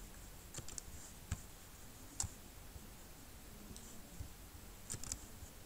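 A handful of separate sharp computer mouse clicks, with a quick cluster of clicks near the end, over faint room hiss.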